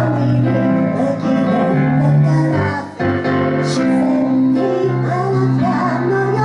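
A singer's voice over piano accompaniment, singing a Japanese pop ballad while playing the piano.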